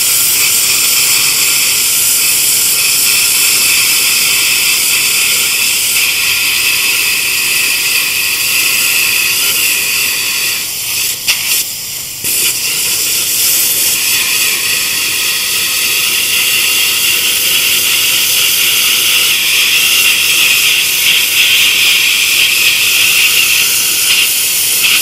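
Air plasma cutter of an NBC 288 multi-process welder cutting steel plate: a loud, steady hiss of the arc and compressed air. It dips and stutters briefly about eleven seconds in, then carries on.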